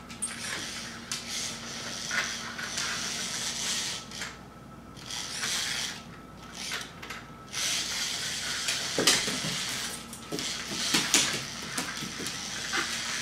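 Small toy R2-D2 robot rolling and clattering on a hard tiled floor, in spells that stop and start, with sharp clicks and knocks.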